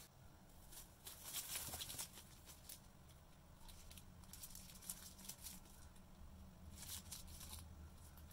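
Brown-paper food wrapping and small plastic sauce bags being handled, crinkling and rustling in irregular bursts, loudest a second or so in.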